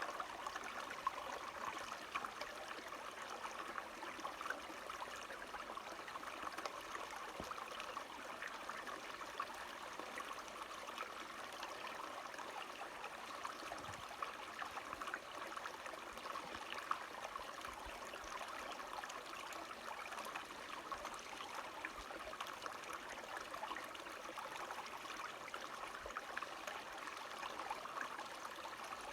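A small stream of running water, trickling steadily.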